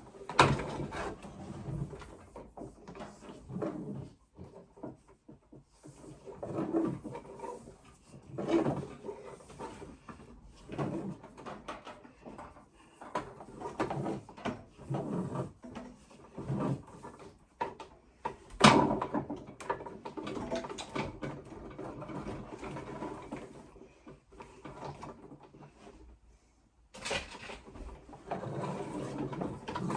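Irregular knocks, scrapes and rustling from hands handling cable and fittings, with two sharp knocks, one about half a second in and one about two-thirds of the way through.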